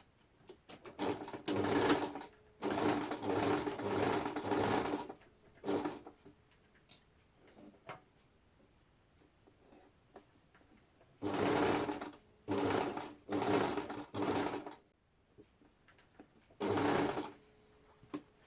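Electric sewing machine stitching in short runs: seven bursts of running motor and needle, stopping and starting again, the longest about two seconds.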